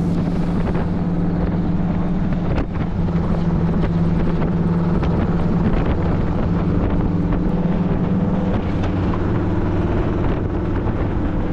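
A vehicle engine running at a steady cruise, with a constant hum under road and wind noise.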